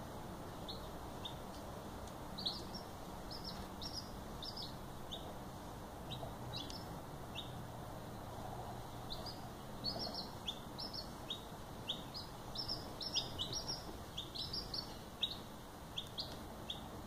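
Silver laced Wyandotte chicks, a few days old, peeping: short, high peeps, coming more often in the second half, over a steady low hiss.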